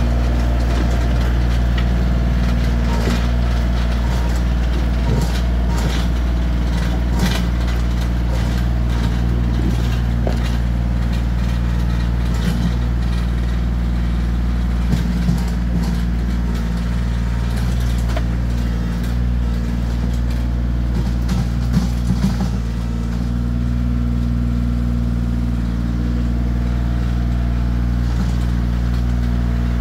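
Bobcat CT2025 compact tractor's diesel engine running steadily under load while it drags a box blade through dirt. Scattered knocks and clatters from the implement and debris are mixed in, clustered in the first half and again a little past the middle.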